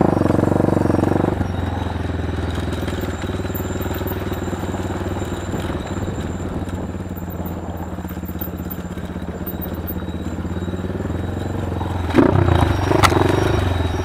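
Small motorcycle engine running steadily at an even speed, a little louder for the first second. Near the end there is a brief jumble of louder noise with a sharp click.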